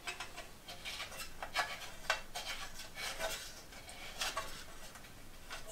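Light metallic clicks and scrapes as the fuel-tank screw cap at the back of a Desca sheet-steel spirit stove is turned and the stove is handled.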